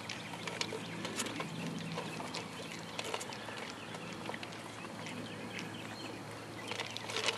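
Young Labrador retriever puppies eating dry kibble from a shared tray: soft, scattered crunching and clicking of the food.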